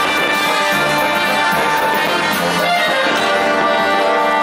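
Orchestral music with brass to the fore, playing long held chords.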